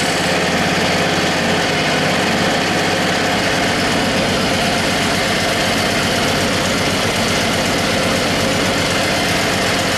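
Snowblower engine running steadily at a fast, even firing beat; about three and a half seconds in, its low thudding grows heavier.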